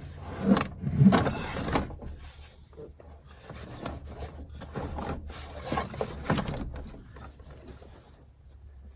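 Ford F150 interior door trim panel being handled and fitted back onto the door: a run of irregular knocks and rattles, loudest about a second in, over a steady low hum.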